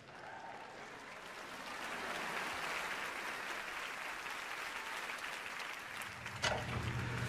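Studio audience applauding, swelling over the first couple of seconds and then holding steady. A low steady hum comes in near the end.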